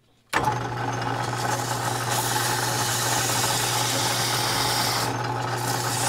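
Atlas 12-inch metal lathe switched on about a third of a second in and running steadily with a constant hum, while sandpaper is held against the spinning metal wheel spacer in its chuck, adding a hiss that eases briefly about five seconds in.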